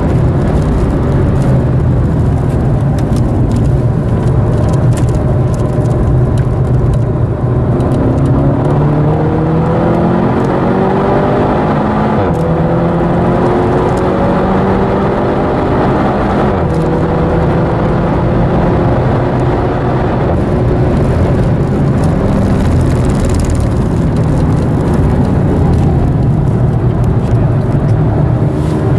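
Seat Leon Cupra's turbocharged four-cylinder engine heard from inside the cabin, pulling hard on track. Its pitch climbs and drops sharply twice as it shifts up, holds steadier for a while, then climbs again near the end, over constant road and tyre noise.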